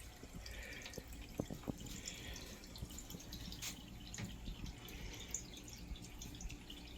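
Small aquarium waterfall trickling into the tank, a steady faint splash with many small drips scattered through it.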